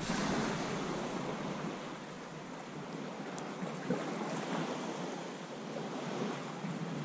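Calm sea washing gently against the rocks of a stone breakwater: a steady hiss of small waves.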